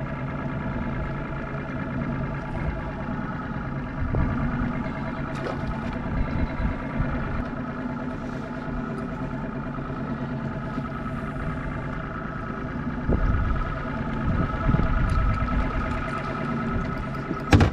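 An engine idling steadily, a constant even hum, with low rumbling gusts on the microphone in the second half and a sharp knock near the end.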